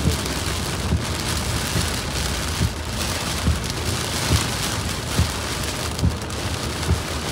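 Heavy rain on a moving car, with a steady hiss from rain and wet road. A short, low thump comes a little more often than once a second.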